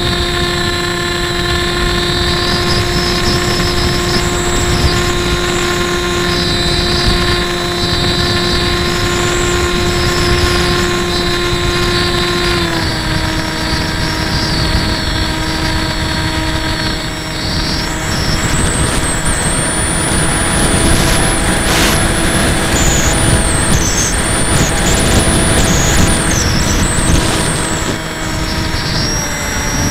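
A HobbyKing Breeze FPV model plane's electric motor and propeller running at cruise, heard from on board as a steady whine over wind rush on the microphone. The whine drops slightly in pitch about halfway through and rises again just before the end.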